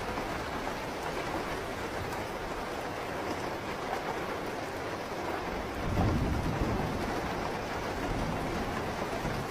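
Steady rain falling, with a low rumble of thunder rolling in about six seconds in and lingering to the end.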